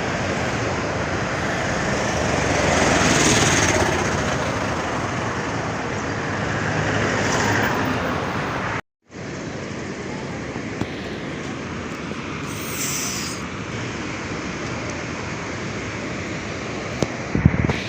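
Steady rushing roar of the Chania Falls waterfall, swelling slightly in places and broken by a sudden brief cut about halfway through.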